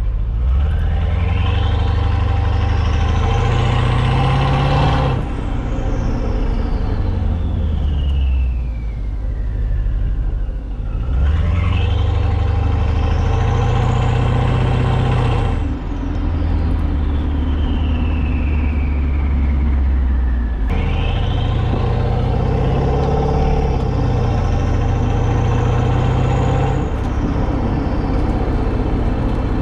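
Mercedes-Benz S550's V8 running through catless downpipes and a resonator-deleted exhaust, heard at the tailpipe while driving: three hard pulls, the engine note and a high whine climbing in pitch each time. Each pull cuts off abruptly as the throttle closes, and the whine then slides back down as the car coasts.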